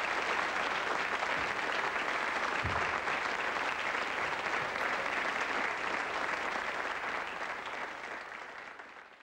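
Studio audience applauding, a steady dense clapping that fades away over the last two seconds.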